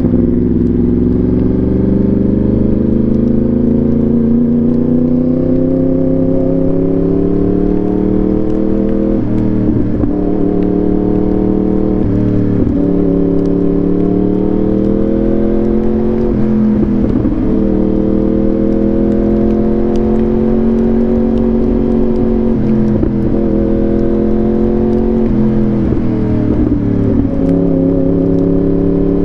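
Yamaha R1's inline-four engine through an SC Project exhaust, ridden under steady throttle. The engine note climbs gradually and is broken by short dips every few seconds.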